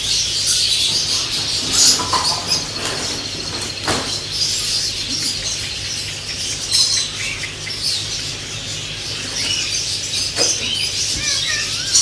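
Many small birds chirping together in a dense, high-pitched chorus, with a few sharp clicks and a low steady hum underneath.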